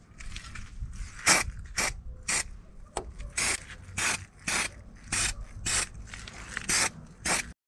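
Hand-tool work on a car's front hub assembly: about a dozen short rasping strokes, roughly two a second and unevenly spaced.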